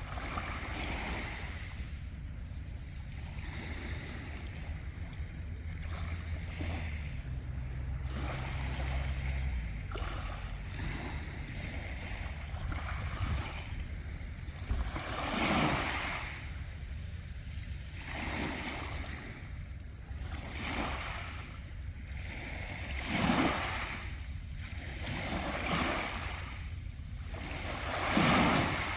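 Sea waves washing in and out over the round pebbles of Mongdol beach, in surges every two to three seconds, with several louder surges in the second half.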